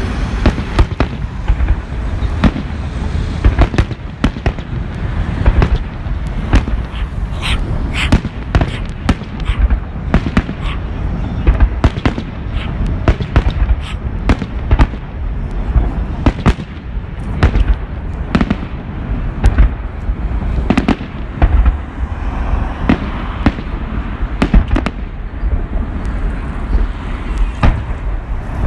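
Fireworks salute: a rapid, continuous barrage of bangs, several sharp reports a second over a constant low rumble.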